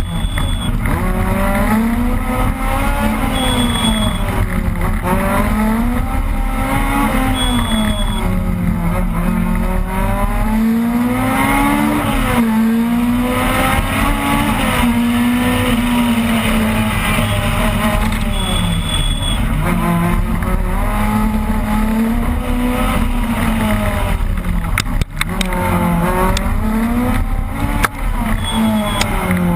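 Opel Kadett rally car's engine heard from inside the car at full stage pace, revving up and dropping again over and over through gear changes and corners. Short high beeps sound now and then, and there are a couple of sharp knocks with brief dips near the end.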